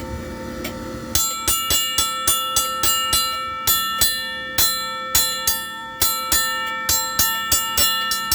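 Railroad crossing signal bell ringing, its hammer striking the gong about three times a second, starting about a second in, with the tone ringing on between strikes.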